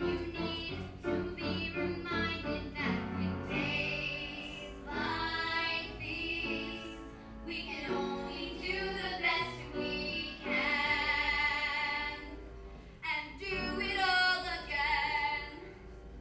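Young girls singing a musical-theatre song together, with piano accompaniment.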